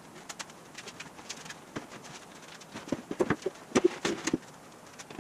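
Scattered light knocks and clicks from handling a steel car frame and its plywood body buck, coming thickest and loudest about three to four and a half seconds in.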